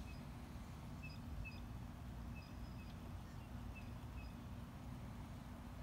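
Quiet outdoor pond-side ambience: a bird gives short, faint, high chirps, often in pairs, about every second, over a low steady rumble.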